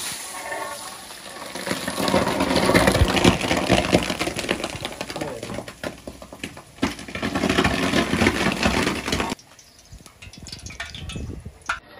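Large aluminium pot of rice on hot coals hissing and bubbling with steam and boiling water as its lid is lifted off. The noise stops abruptly about nine seconds in.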